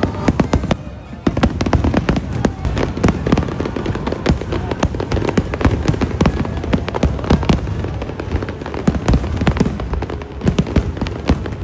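Aerial fireworks going off in a dense barrage: rapid bangs and crackles, several a second, with a brief lull about a second in. Music plays alongside.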